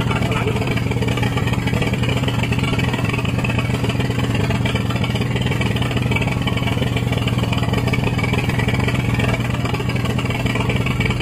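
Engine on a bagang fishing boat running steadily with an even, unchanging hum.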